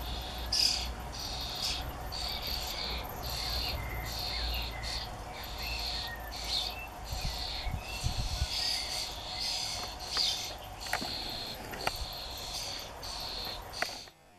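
Common starling nestlings giving a rapid series of short, raspy, high-pitched begging calls while a parent feeds them; the calling cuts off suddenly near the end.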